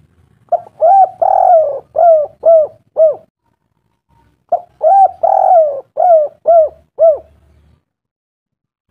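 A bird calling: two phrases of about six short cooing notes, each note rising and then falling in pitch, with a pause of about a second and a half between the phrases.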